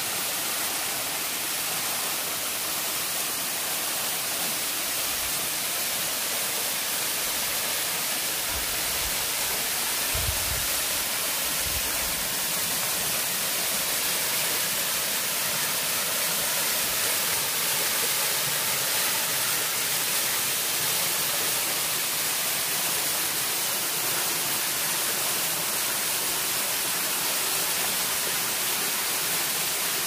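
Waterfall rushing steadily as water pours down a rock face into a plunge pool, an even hiss, with a few faint low bumps around the middle.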